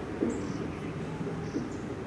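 Insects chirping about once a second, over low pitched notes that sound like a tune or distant chanting.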